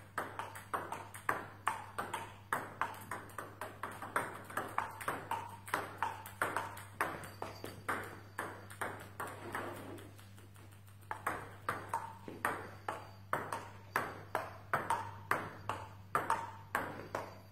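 Table tennis balls clicking off bats and the table in a quick, even rhythm of several clicks a second during multiball feeding, with a brief lull about ten seconds in. A faint low hum runs underneath.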